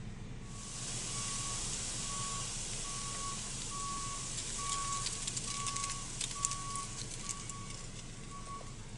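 A truck's reversing alarm beeping steadily, about once a second, over a steady hiss. Sharp crackles, typical of burning brush, come in a run through the middle.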